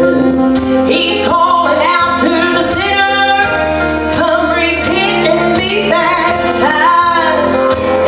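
A woman singing lead into a handheld microphone, amplified through a PA, over instrumental accompaniment with held bass notes.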